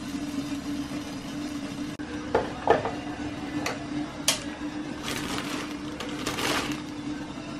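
A steady low hum with a few sharp clinks and knocks of dishes and utensils near the middle, then two short scraping rustles.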